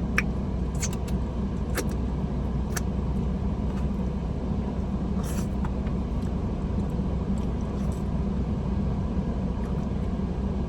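Steady low rumble with a few short, faint clicks of eating scattered through it.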